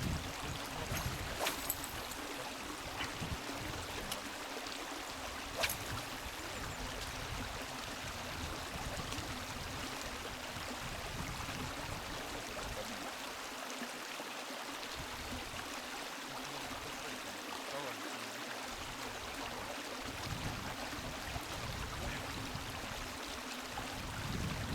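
Steady rush of flowing river water, with a couple of faint clicks about a second and a half and five and a half seconds in.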